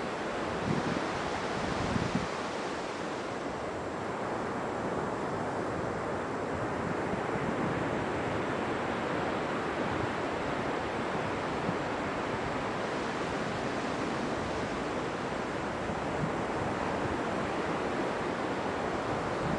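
Sea surf washing on a beach, a steady rush of waves, with wind buffeting the microphone in a couple of short gusts about one and two seconds in.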